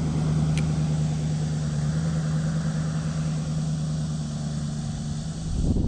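Motor vehicle engine on the nearby road: a steady low hum over road noise that slowly fades and drops away near the end.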